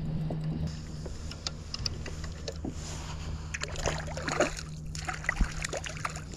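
Water splashing and lapping against a moving kayak's hull, with scattered small knocks and clicks, over a steady low hum; the splashing is busiest in the middle.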